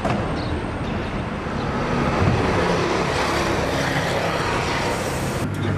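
Steady road traffic noise: a continuous rumble and hiss of vehicles, with a steadier low hum coming in about five and a half seconds in.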